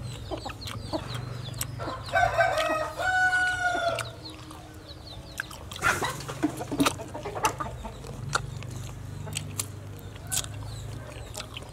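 A rooster crows once about two seconds in: a call of about two seconds that ends in a long held note. Short sharp clicks are scattered through.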